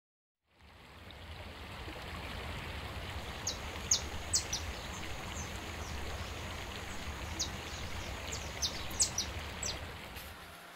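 Outdoor ambience fading in: a steady rushing background noise with a low hum underneath, and small birds giving a dozen or so short, high chirps from about three seconds in.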